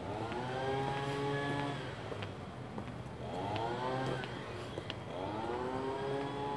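A vehicle engine accelerating, its pitch climbing in three rising sweeps about two seconds apart, each one levelling off before the next.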